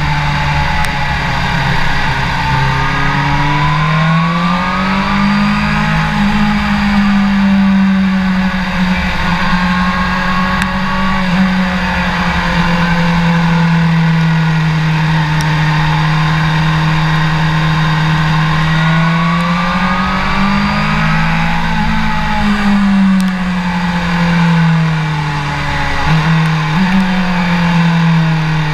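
BMW S1000RR inline-four sport bike engine under way at track speed. Its note climbs a few seconds in, holds steady, rises again about two-thirds through, then falls as the bike slows, with a sudden short step up near the end as it shifts down.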